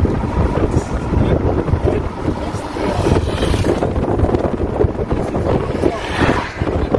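Wind buffeting the microphone over the low rumble of a moving car, heard from inside the car.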